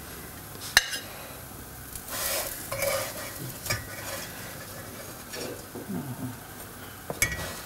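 Spatula scraping and tapping on a nonstick frying pan as vegetable nuggets are lifted out, over a light sizzle from the pan. There is a sharp tap about a second in, and another near the end.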